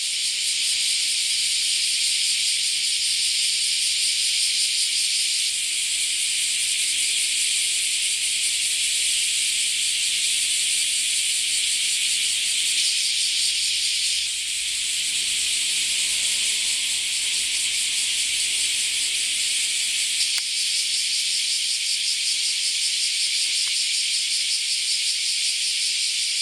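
Dense chorus of many cicadas shrilling at once: a loud, continuous high-pitched drone that rises and falls only slightly in level.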